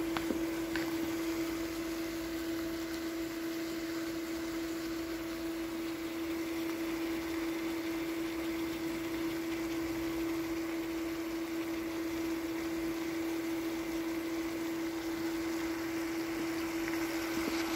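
Beef, onion and celery stir-fry sizzling in a pan on an induction cooktop, over the cooktop's steady electrical hum.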